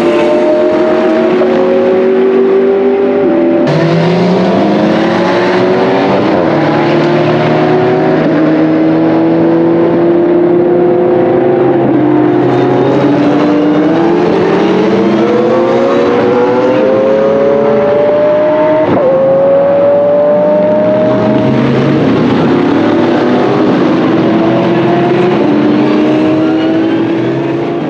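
Pagani Zonda GR's 6.0-litre Mercedes-AMG V12 race engine accelerating hard through the gears, its pitch climbing and dropping sharply at each upshift, mixed with the engines of other GT race cars on track. The sound fades out near the end.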